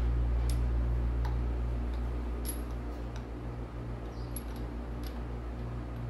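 A few faint, scattered metal clicks from a torque wrench being worked on the rocker-arm bolts of a Cat 3406B cylinder head, over a steady low hum.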